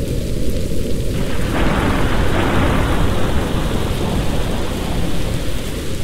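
Steady rain with a roll of thunder that comes in about a second in, peaks soon after and dies away near the end.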